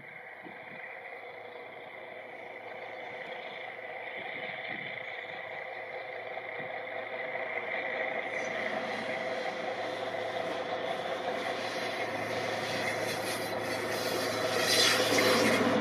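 A train approaching on the line: its running noise, with a steady hum, grows steadily louder, and wheel and rail clatter builds near the end.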